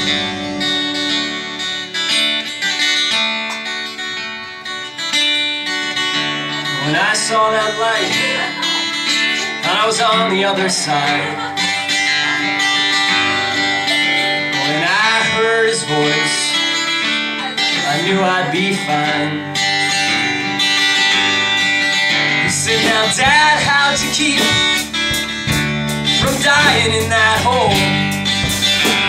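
A small band playing live: strummed acoustic guitar with violin and cello, and a sliding melody line over the chords, with no sung words.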